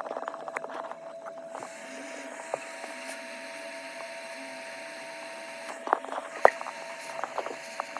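Small repair tools clicking and tapping on a phone's circuit board, in two clusters: one at the start and one after about six seconds. Under them runs a steady whine and hiss from bench equipment.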